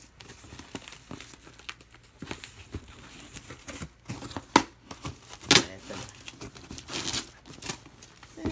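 A parcel's packaging being torn open and crinkled by hand: irregular rustling and crackling, with two sharp, loud tears in the middle.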